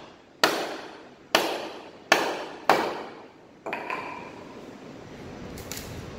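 Wooden mallet striking the back of a steel froe four times, driving it into a log to split it. A lighter knock with a short ring follows, then a few faint clicks near the end as the froe is levered.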